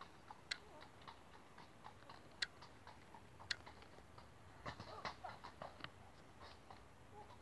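Near silence with faint, irregular clicks and ticks, and a few short chirps about five seconds in.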